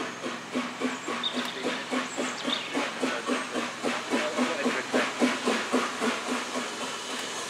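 Steam locomotive working steam as it approaches, its exhaust beating about four times a second and growing louder. Near the end the beats fade away, leaving a steady hiss.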